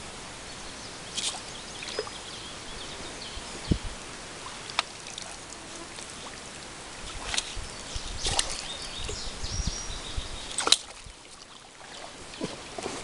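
Scattered knocks and clicks from gear moving in a small fishing boat over a steady outdoor background, with the loudest knock near the end. A few short high bird chirps come in between.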